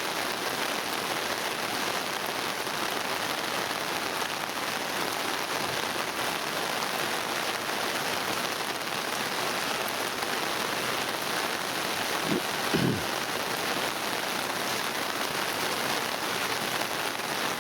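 Monsoon rain falling steadily, an even hiss of water with no letup. A brief low tone sounds about twelve seconds in.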